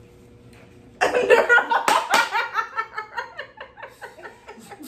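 Group of women bursting into loud laughter about a second in, with one sharp smack soon after, the laughter trailing off in rhythmic ha-ha pulses.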